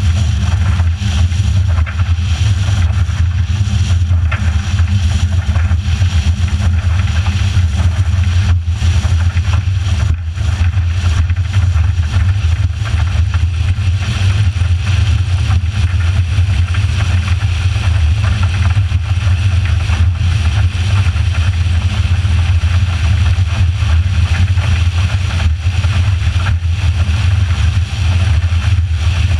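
Motorboat running steadily underway: a constant low engine drone with a rush of wind and water over it.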